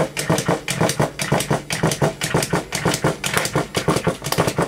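Battery-powered Chubby Puppies & Friends Toffee Pony walking toy running, its small motor humming under a steady rhythmic clatter of about four or five clicks a second as it walks.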